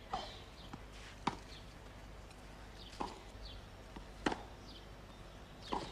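Tennis ball struck back and forth with rackets on a clay court, starting with a serve. It makes a sharp, separate pock roughly every second and a half over a faint steady hum.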